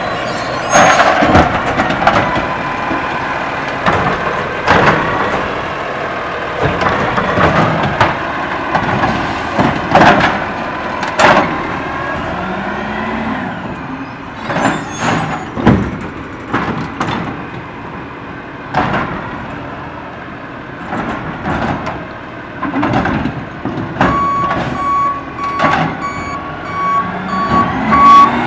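Autocar ACX garbage truck with a DaDee Scorpion automated arm running and manoeuvring, its body and arm giving off many sharp clanks and rattles. Near the end its backup alarm starts beeping steadily as the truck reverses back to a cart.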